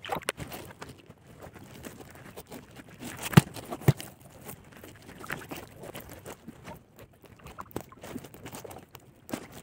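Nylon gill net and a plastic sheet rustling and crinkling as fish are worked free of the mesh by hand, with two sharp knocks about half a second apart a few seconds in.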